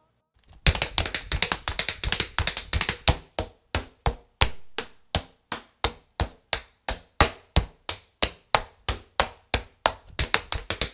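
Tap shoes striking a wooden board in an unaccompanied tap solo: quick flurries of taps at first, settling into evenly spaced single taps about three a second, with another quick flurry near the end.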